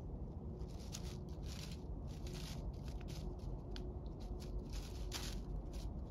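Gray squirrel foraging in dry fallen oak leaves: a run of short, crackly leaf rustles and scratches, faint.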